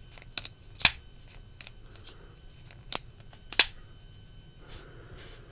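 Benchmade Bugout folding knife being worked in the hand: its AXIS lock and blade give a run of sharp metallic clicks at irregular intervals, about five strong ones with fainter ones between, as the blade is swung open and shut.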